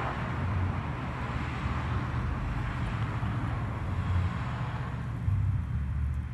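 Road traffic going by, the tyre hiss of a passing car fading away over the first few seconds, over an uneven low rumble of wind on the microphone.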